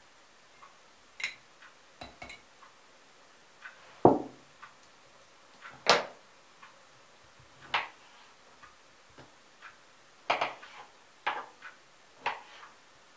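Clinks and knocks of a utensil in a glass jar as a salted cucumber is fished out, then a heavy thud about four seconds in as the jar is set down on the table. Near the end comes a knife slicing the cucumber on a wooden cutting board, about one chop a second.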